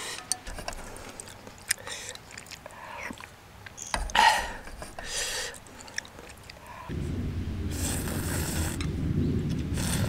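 Eating from a camping pot: small clicks and scrapes of chopsticks and a spoon against the metal pot and its lid, with a few short louder rushes near the middle. About seven seconds in, a steady low rumble comes in suddenly and continues.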